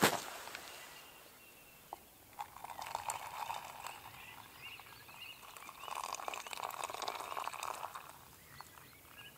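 Water poured from a metal kettle in a thin stream into a collapsible cup, splashing steadily in two spells, the first from about two and a half seconds in and the second, stronger one from about six seconds in.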